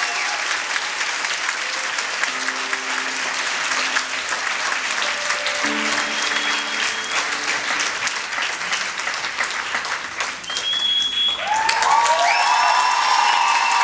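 Audience applauding steadily as a performance ends, with a few soft, held music notes fading in the first half. A brief high whistle cuts through at about ten seconds, and then cheering and whoops swell over the clapping near the end.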